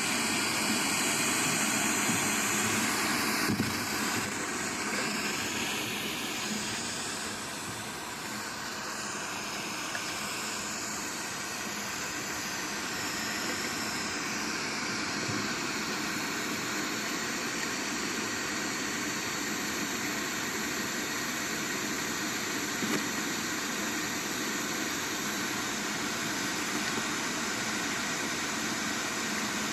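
Steady rushing noise from a microphone lowered 18 m down a 50 mm cased borehole, played back through a small speaker. It is a little brighter and louder for the first few seconds, then stays even. The recording team takes it for sound from an underground tunnel; the title says the Defense Ministry calls it wind noise.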